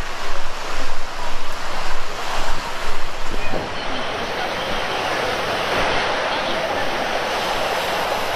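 Surf washing onto a beach, with wind buffeting the microphone in gusts for the first few seconds. About halfway through, the wind drops and the sound settles into a steady wash of surf with faint voices.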